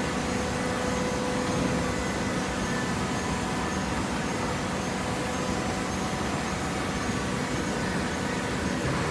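Hydraulic cardboard baler running with a steady machine hum, its tone holding even throughout.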